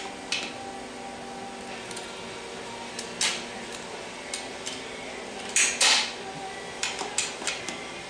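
Sharp metallic clicks and scrapes at irregular intervals, loudest as a pair about halfway through, as a 90-degree pick and fingers work a large snap ring out of its groove inside a Turbo 400 transmission case.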